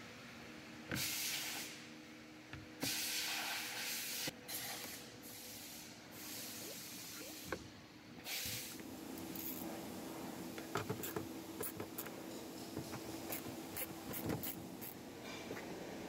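Hands working the plastic inner trim panel of a car's rear door: a few brief bursts of scraping, rustling hiss, then in the second half a quick run of sharp plastic clicks and taps.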